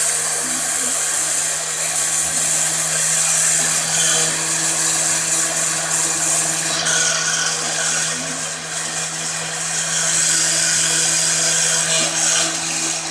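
Electric power tool running continuously, a steady hum under a loud hiss of cutting.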